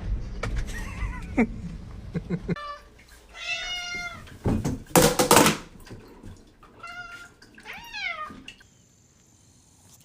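A domestic cat meowing about three times, several of the calls falling in pitch, with a loud noisy burst about halfway through and some knocking and rumbling near the start.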